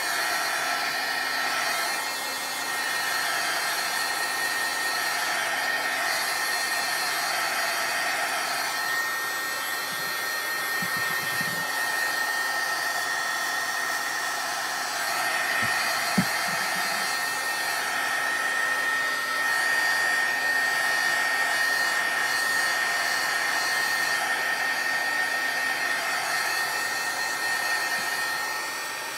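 Craft heat tool (embossing heat gun) blowing steadily, a fan rush with a thin high whine, drying the sprayed Brusho watercolour crystals on the paper.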